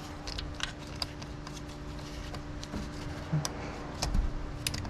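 Scattered light metallic clicks and taps as an oil filter wrench and ratchet are fitted onto an oil filter under a car, over a steady low hum.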